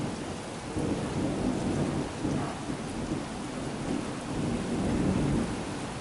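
Thunder rumbling in several swells over steady rain, easing off toward the end.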